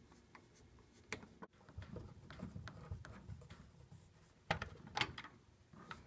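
Phillips screwdriver backing screws out of a washing machine's control-console panel: faint scraping and rubbing with a few light clicks, the loudest clicks about four and a half seconds in.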